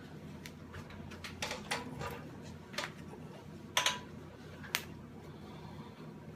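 Handling noise from gloved hands twisting and folding a softened lump of fused HDPE grocery-bag plastic on a sheet-lined baking tray: scattered short crinkles and clicks, the sharpest nearly four seconds in, over a faint steady hum.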